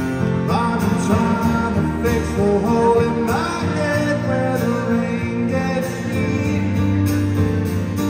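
Live performance of a man singing with a strummed acoustic guitar; the voice comes in about half a second in, with sliding notes.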